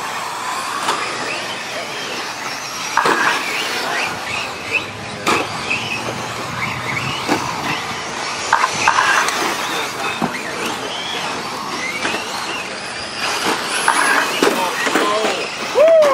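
Electric 1/10-scale short-course RC trucks, among them a Losi SCTe with a Castle Mamba Monster Pro controller and 3800kv brushless motor, running on a dirt track. Their motors whine up and down in pitch with the throttle.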